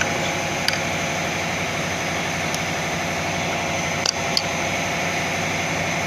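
A steady machine drone with an even low rhythm, like an engine running, with a few light clicks at irregular moments from engine parts being handled.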